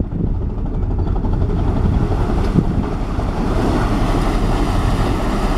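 Small car ferry's engines and propellers churning the water as it comes in to dock, the rushing wash growing louder about two seconds in, with wind buffeting the microphone.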